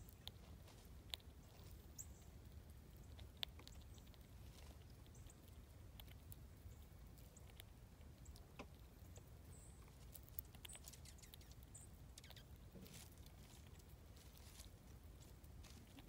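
Faint scattered clicks and crunches of a gray squirrel chewing and cracking seeds close to the microphone, over a low steady rumble, with a few brief high bird chirps.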